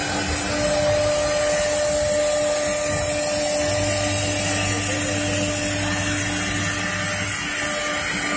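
Three-head CNC router spindles running and engraving a board: a steady machine whine with a high hiss, a further tone joining about half a second in, and a low hum from about four to seven seconds in.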